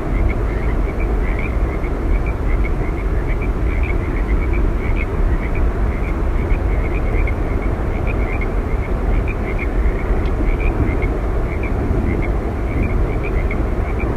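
Steady low roar of Yosemite Falls' falling water, even and unbroken. Over it run many short high chirps, several a second, from small creatures in the meadow.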